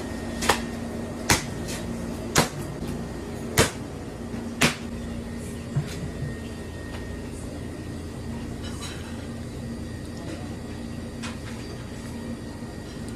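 Sharp knocks on a plastic prep table as raw octopuses are handled and cut with a large knife: five about a second apart in the first five seconds, a smaller one soon after, then only a steady background hum.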